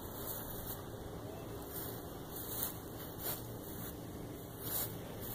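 Quiet, steady outdoor background noise with a few soft, brief rustles.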